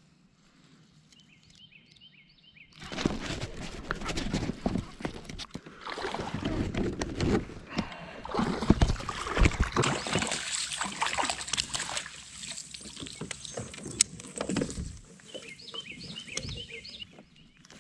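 Water splashing and sloshing close beside a fishing kayak, mixed with knocks and rustling of handling, from about three seconds in until near the end, as a spotted bass is brought to the boat and netted. A few high bird chirps come before it starts and again after it dies down.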